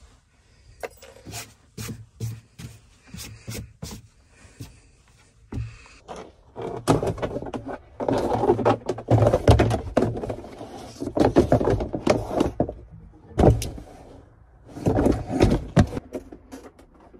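A molded rubber TractorMat floor liner being handled and worked into place on a tractor cab floor: a few light taps and clicks at first, then repeated bursts of scraping and rubbing with some dull knocks as the mat is pushed down around the pedals.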